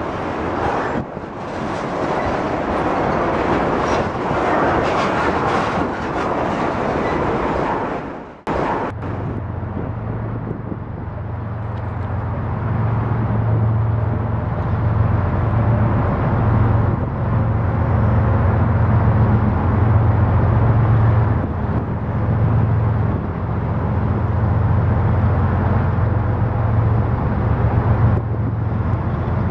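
Freight train of loaded tank cars rolling past, a loud rushing of steel wheels on rail. It cuts off about 8 seconds in, and a steady low engine drone follows, slowly growing louder as a train approaches in the distance.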